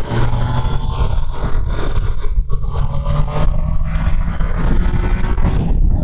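Triumph Tiger Sport 660's three-cylinder engine running hard on track, under a loud rush of wind noise over the rider's microphone. Near the end the high hiss drops away sharply.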